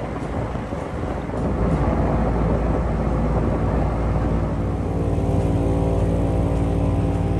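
Airboat's engine and air propeller running steadily with a deep drone; the sound dips briefly near the start, then holds steady.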